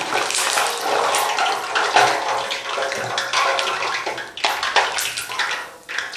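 Chocolate churros deep-frying in hot oil: a steady, dense sizzling and crackling.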